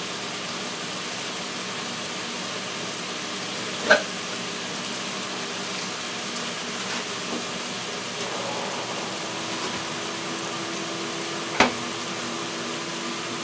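Carrots, onions and red peppers frying in a pan on a gas burner, a steady sizzle, with two brief knocks, one about four seconds in and one near the end.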